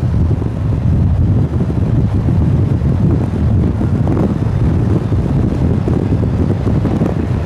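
Strong wind buffeting the microphone: a steady, dense rush heavy in the low end, with no clear engine tone or distinct knocks.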